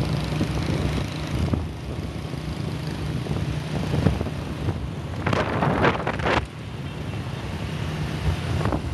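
Motor scooter engine running steadily while riding, with wind buffeting the microphone. A louder rough noise swells for about a second past the middle, likely passing traffic.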